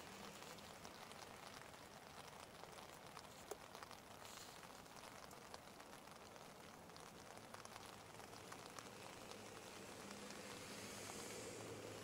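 Faint light rain, a soft patter with scattered drops ticking. A low hum from a passing vehicle rises near the end.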